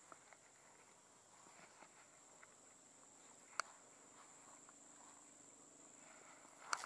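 Near silence: a faint steady high insect drone, with soft rustles and ticks from a cast net being handled and one sharp click about three and a half seconds in. A short burst of louder rattling and rustling of the net starts near the end.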